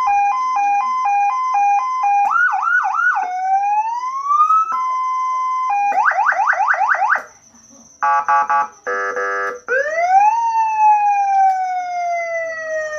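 Electronic siren through a 100-watt siren loudspeaker, stepping through its tones: a fast two-note alternating beep, a few quick yelps, a rising glide into a steady tone, a rapid run of upward yelps, choppy blasts and a buzzy horn tone, then a wail that rises and slowly falls.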